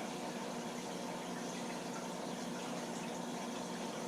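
Running fish tank: steady trickling and splashing of water from the filter, over a low steady hum. The tank's water level is low, which the keeper names as a major cause of the noise.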